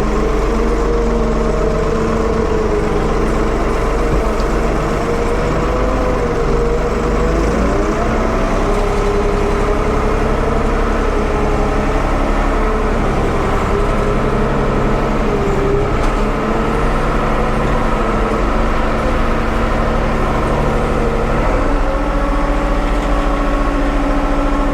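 1975 Ford 550 backhoe's engine running at wide-open throttle while the machine drives in first gear, a steady loud drone. Its pitch shifts slightly about a third of the way in and again near the end.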